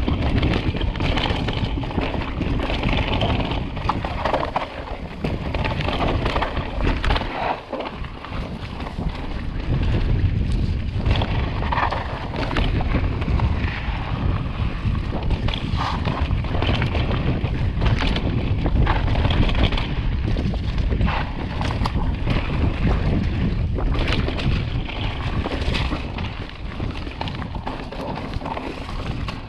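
Wind buffeting the microphone of a mountain bike rider's camera during a trail descent, over continuous tyre noise on dirt and frequent short rattles and knocks from the bike over bumps.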